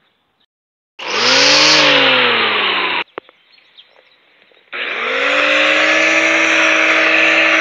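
Electric string trimmer fitted with zip-tie cutting line, switched on twice. The first short run whines up and sags in pitch before cutting off. After a pause with a few clicks, it starts again and runs at a steady pitch.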